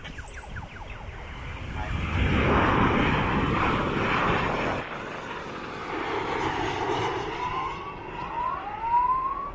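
Twin-engine jet airliner passing low overhead on landing approach: its engine roar swells to a loud peak a couple of seconds in, then eases off as it goes over. A few short rising whistle-like tones come near the end.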